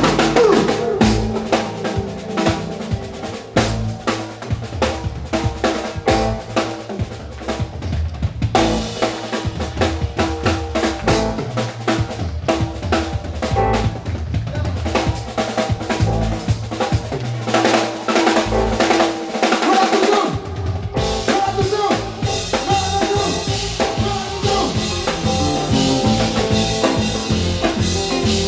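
A live band playing, with the drum kit to the fore: fast snare and rim strokes over bass drum and bass. The low end drops out for a moment about 20 seconds in, then the band comes back in.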